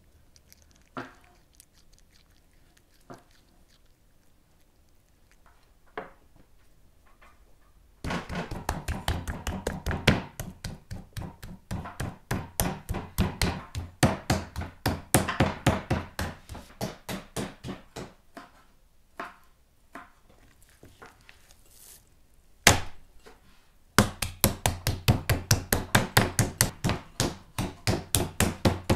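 Metal meat tenderizer mallet pounding a slab of raw beef on a wooden cutting board, flattening it: rapid repeated strikes, about four or five a second. The pounding starts after a quieter stretch of scattered clicks, runs for about ten seconds, stops, and then resumes after one lone strike.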